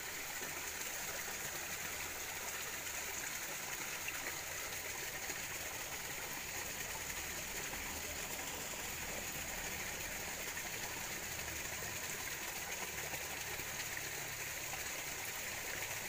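Shallow stream flowing steadily, an even watery rush with no breaks.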